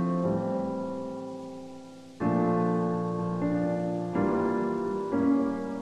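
Slow piano music: sustained chords, each left to ring and fade, a long one early on, then new chords struck about once a second.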